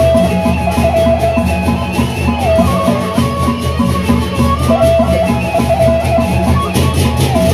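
Sasak gendang beleq ensemble playing: a bamboo suling flute carries a wavering, ornamented melody over a steady pulse of drums and percussion.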